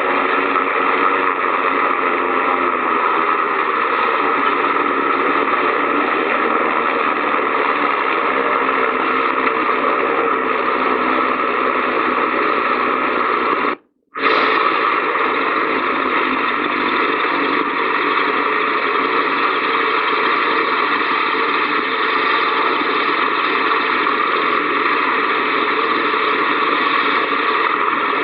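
SR.N6 hovercraft's Gnome gas turbine and propeller running steadily, heard as a dull, hissy old cine-film sound track. The sound cuts out for about half a second about halfway through.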